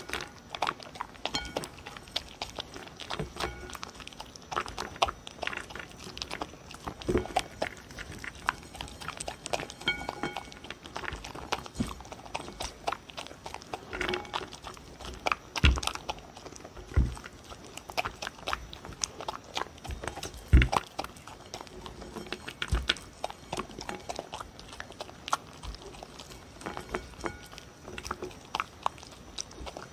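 A dog eating from a ceramic bowl close to the microphone: irregular crunching and chewing of kibble, beef, sweet potato and bell pepper pieces, with sharp clicks as its teeth and muzzle touch the bowl. A few louder thumps come in the middle stretch.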